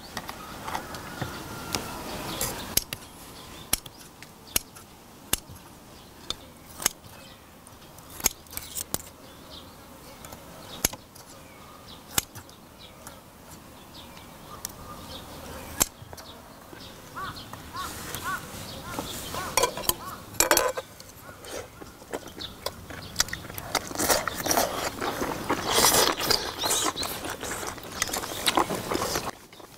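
Metal tongs and kitchen scissors clicking and clinking against clam shells and a cast-iron cauldron-lid pan while seafood stew is served and octopus is cut, in many short sharp clicks. The handling grows busier and louder near the end as shells are picked up and eating begins.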